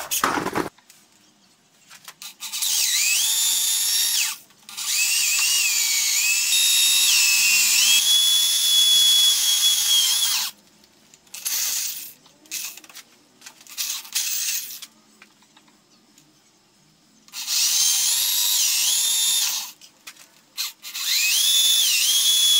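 Handheld corded electric drill boring holes into a lathe's metal drive pulley in several stop-start runs. Each run opens with a rising whine as the motor spins up, and the pitch sags and recovers as the bit bites. Short trigger blips and pauses come between runs as the drill is stopped and re-aimed to keep the hole square.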